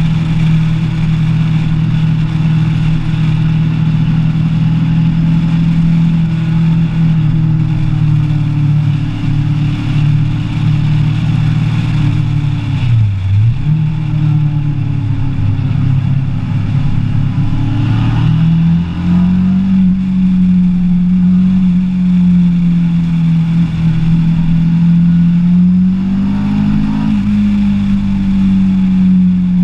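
Kawasaki ER-6n's parallel-twin engine running under way, heard from on the bike. The revs drop briefly and pick up again a little before halfway through, then climb to a higher steady note about two-thirds of the way in.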